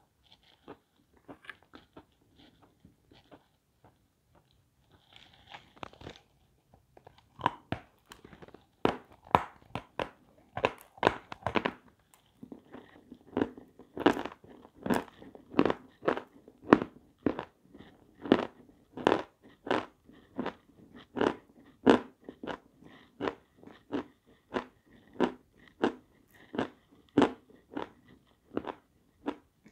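Lumps of white chalk being bitten and chewed with loud crunching: a few faint crunches at first, then steady crunching about twice a second from about seven seconds in.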